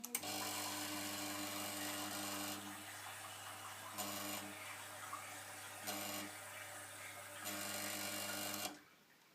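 Rocket R58 dual-boiler espresso machine's pump running with a steady electric hum. It starts abruptly, gets louder and softer several times, and cuts off abruptly after about eight and a half seconds.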